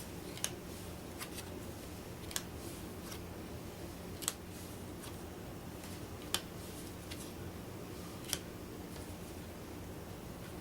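Bear Valley playing cards being set down on a table one at a time: a sharp click about every two seconds, five louder ones with fainter ticks between, over a faint steady hum.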